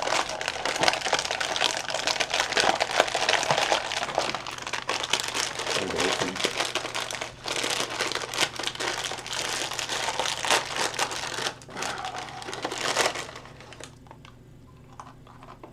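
Snack packaging crinkling and rustling as it is opened and handled. It goes on for about thirteen seconds, then stops.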